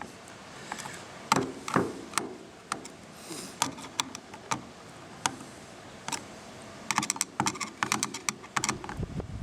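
Light clicks and taps of a screwdriver on small screws and the plastic case of a Makita DMR110 radio being reassembled. The clicks come scattered, with a quicker run of them about seven to eight and a half seconds in.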